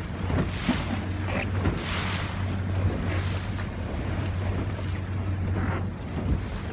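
A boat engine runs with a steady low hum, and wind gusts on the microphone while water splashes, in a rush that comes and goes about once a second.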